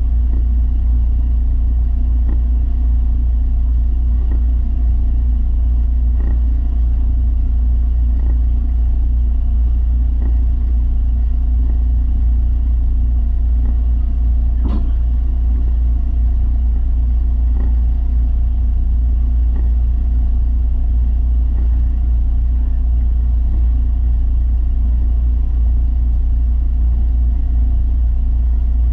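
Electric belt sander running steadily, a constant low motor drone with faint ticks about every two seconds and one sharper click about halfway through.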